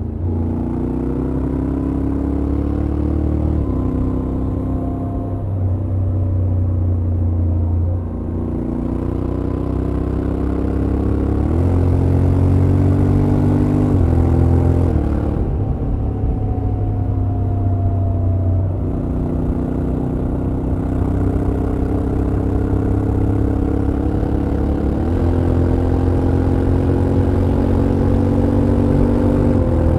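Honda X-ADV 750's parallel-twin engine and exhaust under way on the road. The pitch climbs steadily as the bike accelerates, then steps abruptly several times as the dual-clutch gearbox changes gear.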